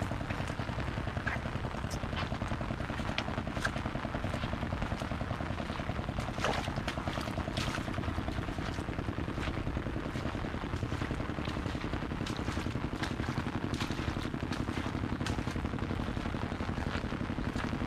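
Rain pattering steadily on an umbrella held close overhead: a dense, continuous patter heavy in the low end, with a few sharper single drops ticking through it.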